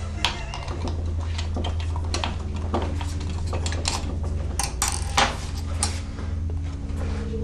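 Scattered clicks, knocks and clatter of small hard objects being handled, over a steady low hum; the sharpest knocks come just after the start and about five seconds in.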